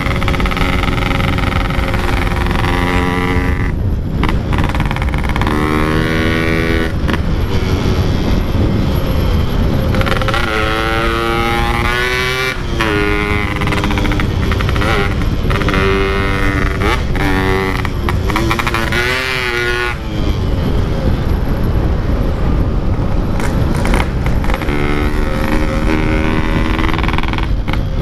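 Two-stroke Yamaha RX-King single-cylinder engine breathing through a Packing Power exhaust, pulling hard through the gears while riding: the note climbs, breaks at a gear change and climbs again several times, over a steady rush of noise.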